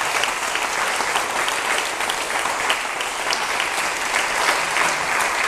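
Audience applauding steadily, a dense mass of hand claps.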